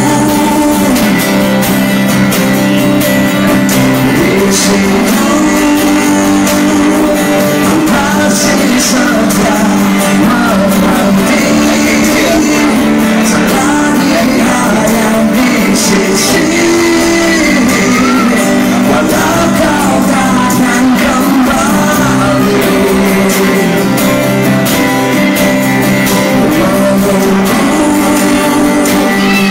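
A song performed live: a voice singing over steady instrumental accompaniment, with no break.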